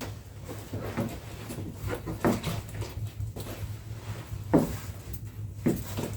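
A series of irregular knocks and thumps, with sharper ones about two, four and a half and nearly six seconds in, over a steady low hum.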